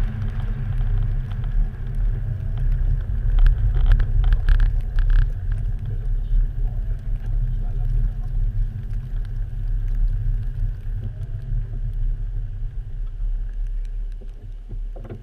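Low, steady rumble of an Audi driving on a snow-covered ice track, engine and tyre noise heard from a camera mounted outside on the car's body. There are a few brief crackles about four seconds in, and the rumble eases near the end as the car slows.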